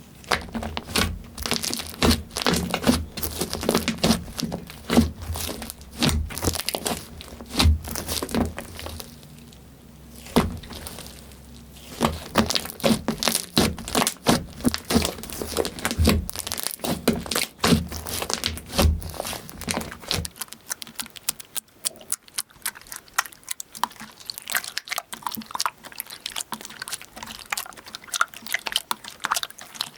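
Crunching and crackling of a crunchy ASMR craft material being pressed and broken: a run of sharp cracks and snaps, many with a soft thud beneath, with a short lull about a third of the way in. In the last third the crackle turns finer and faster, with less thud.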